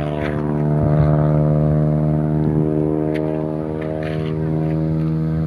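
An engine idling, a steady low hum that holds one pitch throughout.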